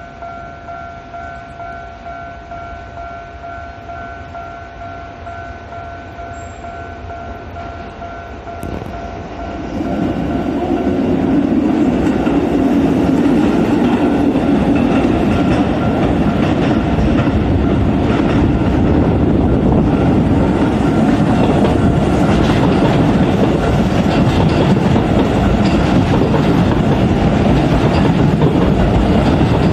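Japanese level-crossing warning bell ringing its steady electronic two-tone chime. About ten seconds in it is drowned by a Keisei 3500-series electric commuter train passing the crossing at low speed: a loud, steady rumble with the wheels clacking over the rail joints.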